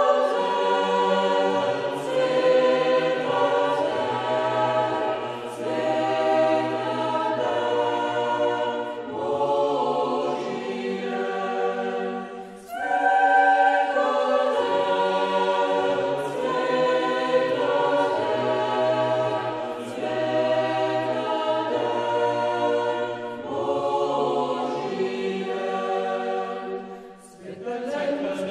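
A choir singing a slow song in long held chords, with a brief pause between phrases about twelve seconds in and again near the end.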